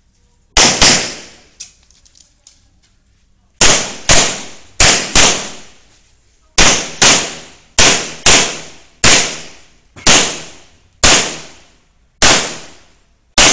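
Handgun shots, about fifteen in all: mostly quick pairs through the first half, then single shots about a second apart, each with a short echo.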